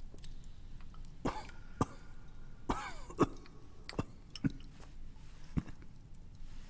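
A man clearing his throat and coughing in a few short bursts, with sharp clicks between them.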